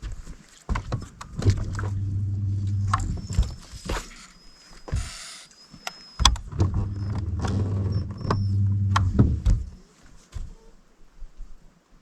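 Fishing reel being cranked in two spells of two to three seconds each, a low steady mechanical whir, with sharp clicks around them and a short hiss between.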